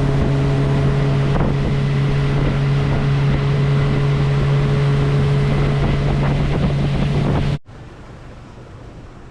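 Fishing boat's motor running steadily under way, with wind buffeting the microphone. The sound cuts off abruptly near the end, leaving a quieter low rumble.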